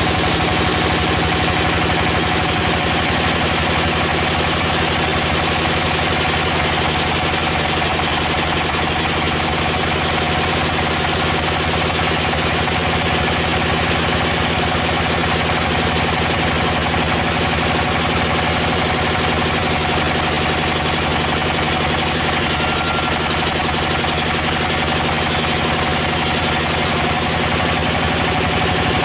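A machine engine running steadily at constant speed, with an unchanging hum.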